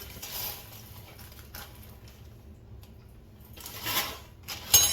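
Popcorn kernels and a metal tablespoon being handled. There is a short rattle of kernels about four seconds in and a sharp, ringing clink just before the end.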